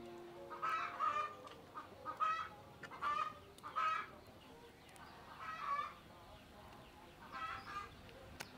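Chickens clucking in short, separate calls about seven times at irregular intervals, with the last notes of a soft background melody fading out in the first second.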